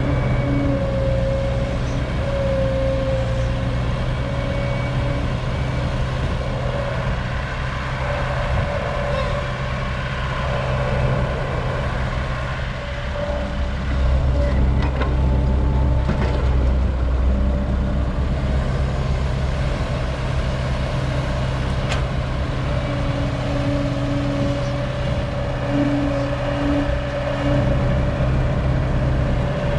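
Heavy diesel engines of an old Caterpillar excavator digging soil and a six-wheel dump truck being loaded, running steadily with a high whine held over the engine note. The low rumble swells about halfway through.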